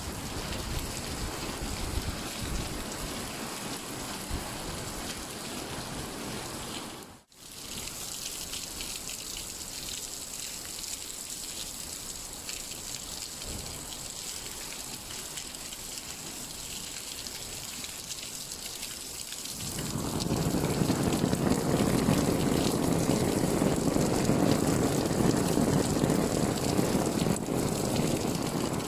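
Rain pattering on an umbrella, a steady hiss of drops. The sound cuts out for a moment about seven seconds in, and about two-thirds of the way through it turns louder and fuller, with a deeper patter.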